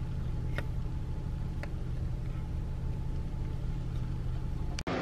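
Car idling, heard from inside the cabin: a steady low hum with a faint steady tone above it. Two faint clicks come in the first couple of seconds.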